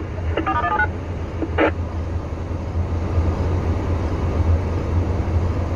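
Vehicle engine idling, a steady low drone heard from inside the cab, with a brief two-way radio burst about half a second in.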